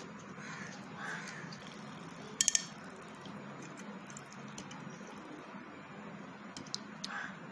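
Homemade plastic whisk mixer beating raw eggs in a china bowl, with three quick sharp clicks close together about two and a half seconds in, over a steady low hum.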